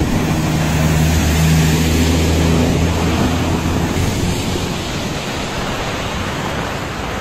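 Steady rush of heavy cyclone rain and wind, with a low vehicle engine drone under it that fades after about four seconds.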